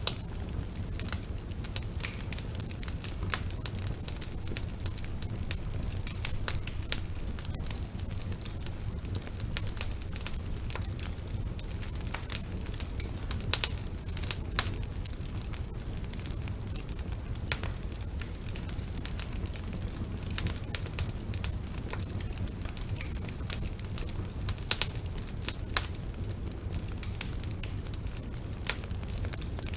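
Wood fire burning in a fireplace: a steady low rumble of flames with irregular sharp crackles and pops from the burning logs, a few louder pops now and then.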